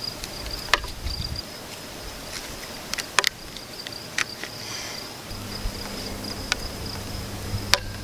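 Several sharp clicks and knocks as a metal telescoping pole is stood up and bungee-corded to a rebar stake. Under them an insect trills steadily as one high, unbroken tone, and a low hum comes in about halfway through.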